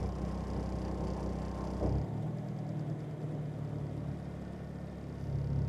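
Steady low mechanical hum like an idling engine, with a single light click a little under two seconds in, after which the hum's pitch shifts slightly.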